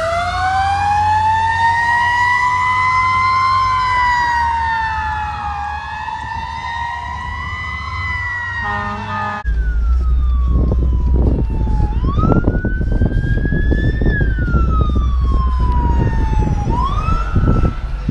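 Electronic emergency-vehicle sirens wailing. First a fire rescue truck's sirens, several tones rising and falling together. About nine seconds in comes a sudden change to a single slower wail from a police car, heard from inside a car over a low rumble.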